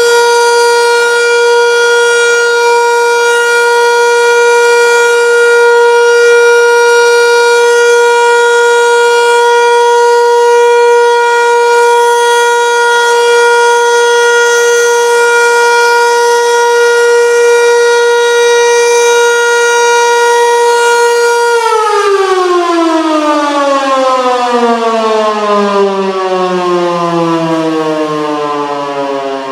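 Landert MSL-6 electric motor siren sounding one steady, loud tone: the 'Warnung' (warning) civil-defence signal. About twenty seconds in the tone ends, and the pitch slides steadily down as the siren winds down.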